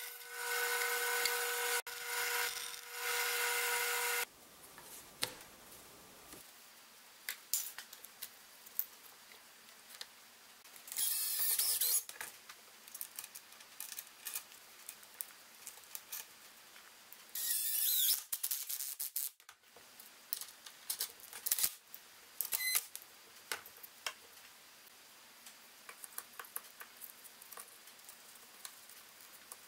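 A scroll saw runs with a steady motor hum while it cuts a slot in a small plywood part, stopping about four seconds in. After that come light clicks and knocks of plywood pieces and bolts being handled, and two short bursts of a cordless driver spinning, one near the middle and a longer one a few seconds later.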